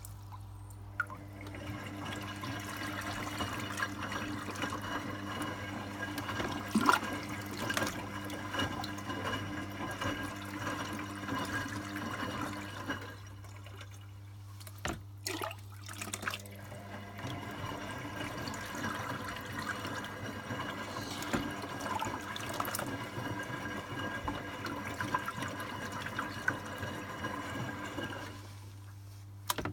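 Water sloshing and splashing inside the drum of a Zanussi ZWC 1301 3 kg washing machine as it turns during a rinse while topping up with water, over a steady low hum. The splashing stops about 13 seconds in, a few clicks follow, it starts again about 16 seconds in, and it stops again near the end.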